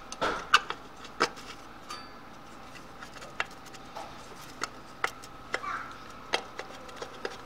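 Irregular metallic clicks and taps, about a dozen, loudest in the first second and a half: a thin sheet-metal plate knocking against the aluminium oil reservoir housing of a vacuum pump as it is handled and fitted in place.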